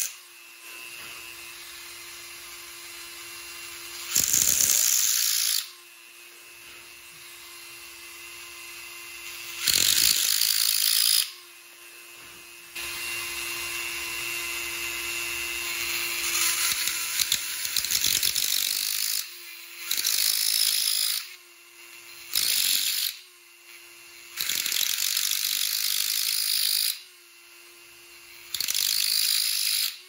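Dremel rotary tool running with a steady whine while its tungsten carbide burr grinds out a hole in a piece of heat-treated steel. About seven louder bursts of grinding come as the burr is pressed into the steel, each a half-second to about three seconds long, with quieter free-running between them.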